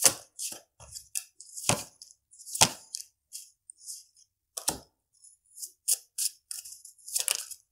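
A deck of tarot cards shuffled by hand: a quick, irregular run of light snaps and flicks as the cards slide against each other, with a few sharper, louder taps as cards are laid out on a wooden desk.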